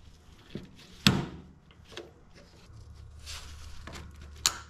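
Sharp plastic clicks and knocks from fuel line fittings and their retaining clips being pushed onto the top of the fuel pump module. Two loud snaps stand out, about a second in and near the end, with lighter handling knocks between them over a low steady hum.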